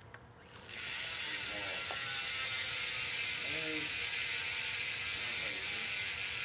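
Industry 9 rear hub freewheeling, its pawls clicking so fast they blend into a loud steady high buzz that starts under a second in.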